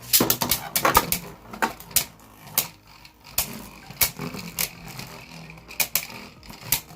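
Two Beyblade Burst spinning tops, Revive Phoenix and Abyss Helios, clashing repeatedly in a plastic stadium as Helios attacks. A rapid, irregular series of sharp clacks, loudest in the first second or so.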